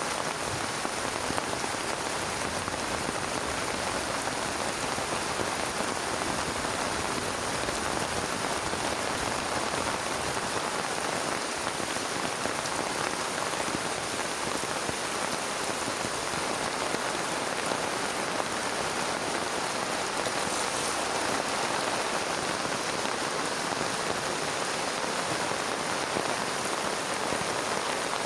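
Heavy rain falling steadily, a dense, even hiss of rain with no letup.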